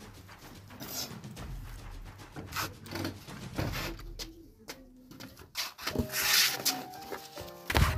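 Rustling, rubbing and light knocks of clothes and a plastic washing basin being handled, with a burst of rustle about six seconds in. A tune of steady notes comes in at about the same point.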